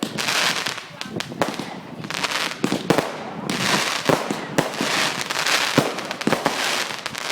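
Fireworks going off: an irregular run of sharp bangs and cracks, with bursts of hissing crackle in between.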